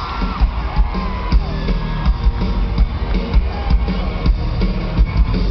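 Live pop-rock band music from a concert arena: a steady drum beat with guitar and heavy bass, in a passage without singing.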